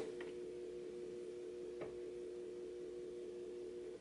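Faint steady electronic hum of two steady pitches from the TV's speaker, fed by the Commodore 64C's RF output while the computer is switched off for a reboot, with two small ticks, cutting off abruptly at the end.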